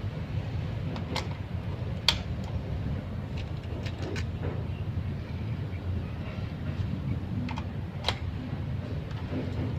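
Two sharp shots from an M4-style air rifle, about two and eight seconds in, with several fainter clicks between, over a steady low rumble.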